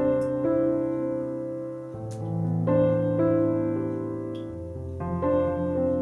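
Background piano music: slow, sustained chords that change every second or two.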